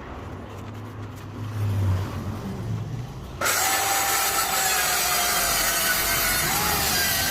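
Low knocking and handling noise, then about three and a half seconds in an electric power saw starts cutting a wooden floor board, running steadily with a whine that sags slightly under load.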